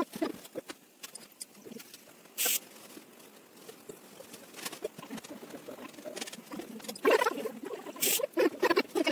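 Paintbrush dabbing and scratching on watercolour paper, with irregular small ticks and rustles from handling. There is a brief louder scuff about two and a half seconds in and a cluster of louder scuffs near the end.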